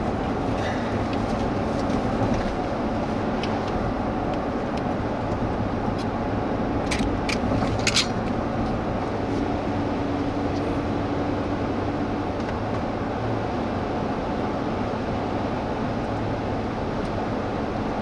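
Steady road and engine noise of a car being driven, with a few light clicks about seven to eight seconds in.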